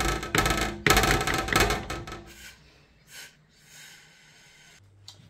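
A serving spoon scraping the inside of a metal pot of turn cornmeal, with the pot ringing, in about three long strokes over the first two seconds before dying away. A low steady hum comes in near the end.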